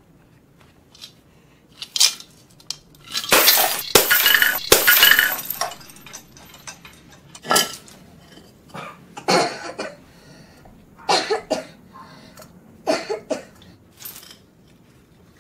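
An earthenware piggy bank is smashed on a concrete floor: a knock, then a loud shattering crash with coins scattering and rattling for a couple of seconds. After that come several single clinks of coins and pottery shards being handled.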